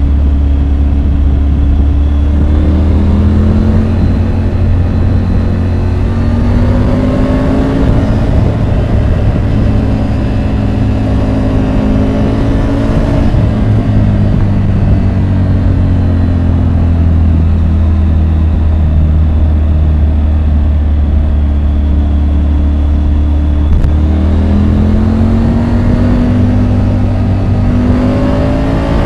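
Triumph Tiger 850 Sport's three-cylinder engine pulling hard through the gears, its pitch climbing under throttle and dropping back several times as it shifts and rolls off. A steady low rumble sits underneath, and a short click comes near the end.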